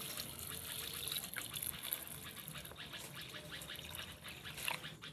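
Water pouring and trickling into a pot of parboiled beans.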